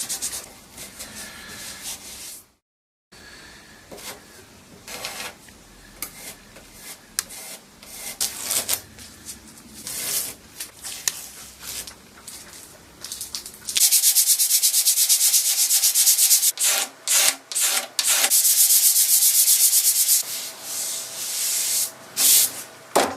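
Sanding of a wood furniture surface, smoothing a filled repair. At first there are short, intermittent rubbing and scraping strokes. From about halfway in, a loud continuous stretch of sanding lasts around six seconds, broken by brief pauses.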